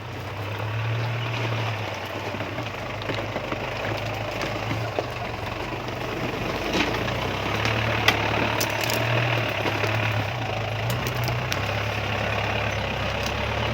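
Truck engine swapped into a Daihatsu Taft 4x4, running steadily at low revs, with a few sharp clicks or knocks along the way.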